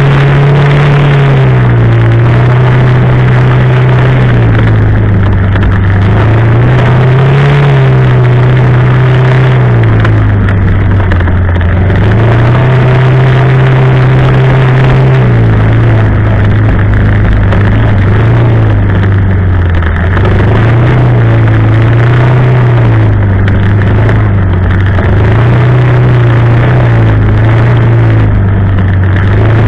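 Quad bike (ATV) engine running under way, its pitch rising and falling every few seconds with the throttle.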